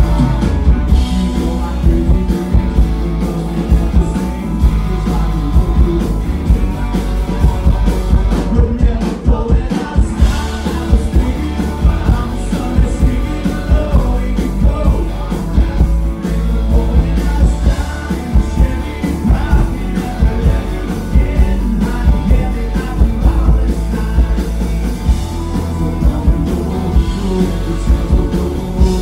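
Live country band playing: a man singing over acoustic guitar and bowed fiddle, with a steady drum beat.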